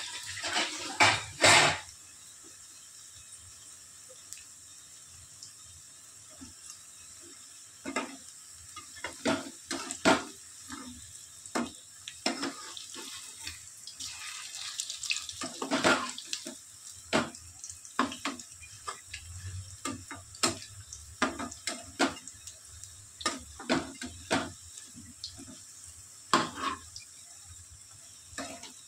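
Kitchen utensils clinking and knocking irregularly, with a short loud rush of noise in the first two seconds.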